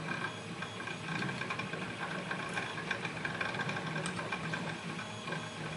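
Pick probing the pin stack of a Lockwood lock, with faint irregular scraping and light clicks over a steady background hum.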